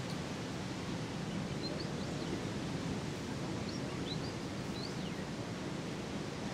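Steady outdoor background hiss with a few faint, short high chirps, a small cluster about two seconds in and more around four to five seconds in.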